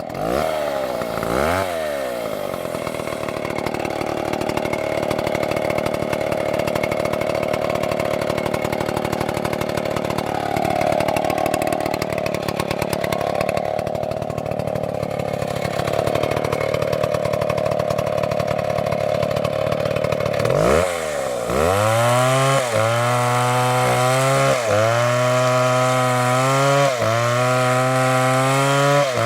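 Chainsaw running at high speed through a long steady cut. About two-thirds of the way in, the engine pitch starts dropping and climbing back again every couple of seconds.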